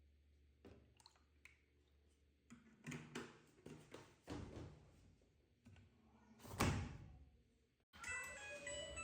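Household handling noises: scattered clicks and knocks, with one loud thud about two-thirds of the way in. Background music with plucked notes starts near the end.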